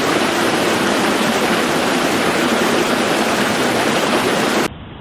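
Loud, steady rushing of floodwater. Near the end it cuts abruptly to a quieter, duller rush.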